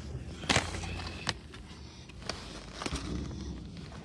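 A few scattered clicks and knocks over a low rumble inside a parked car.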